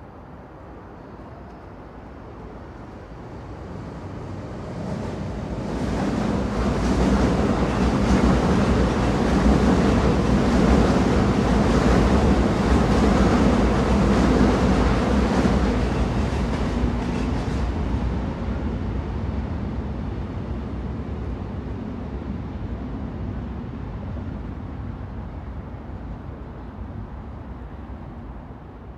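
Train rumbling past: wheel-on-rail noise builds over the first several seconds, is loudest from about 7 to 16 seconds in, then slowly dies away.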